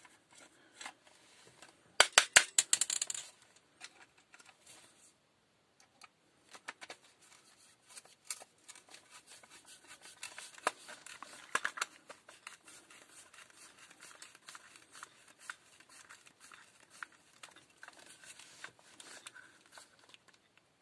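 Hand screwdriver driving a screw into a cordless drill's plastic housing: small irregular scratching and creaking ticks as the screw turns and pulls the housing halves together. A burst of louder sharp clicks and rattles comes about two seconds in.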